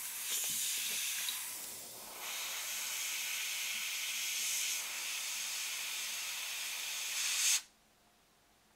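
Airbrush spraying paint: a steady, high-pitched hiss of air that eases briefly about two seconds in, then cuts off suddenly near the end as the trigger is released.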